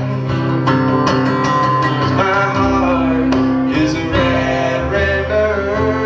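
Acoustic guitar strummed over upright bass in a live folk-blues song.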